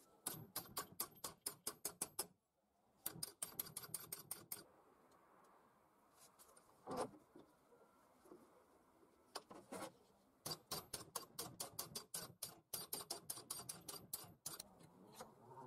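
Rapid light hammer taps on a thin steel strip clamped in a bench vise, about six a second with a bright metallic ring. They come in several runs with pauses between, and there is one single louder knock near the middle.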